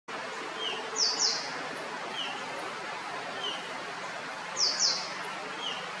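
Rusty-tailed flycatcher calling: two pairs of sharp, high, downslurred notes, about a second in and again near the end, while a softer, lower short note repeats every second or so over steady background hiss.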